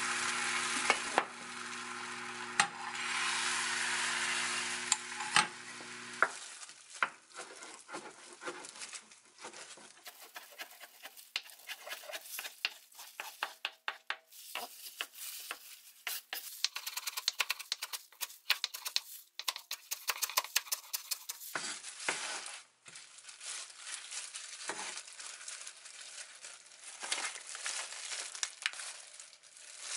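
Beaten egg sizzling in a frying pan as a thin egg sheet cooks. After a cut about six seconds in, a knife chops the cooked egg sheet on a wooden cutting board in a fast run of taps. Near the end come sparser taps and the rustle of plastic-gloved hands handling the fillings.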